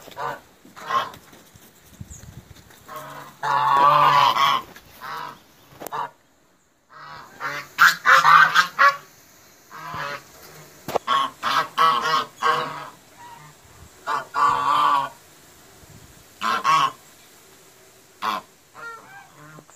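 White Chinese geese honking loudly in repeated bouts of calls, with a brief pause a little past the middle.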